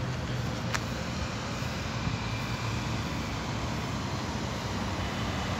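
Steady noise of nearby road traffic, a continuous hum with no single vehicle standing out, with one brief click under a second in.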